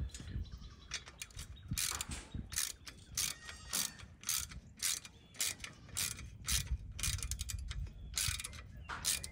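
Ratchet wrench clicking in quick back-and-forth strokes, about two bursts of clicks a second, as bolts on a steel hose reel cart are tightened.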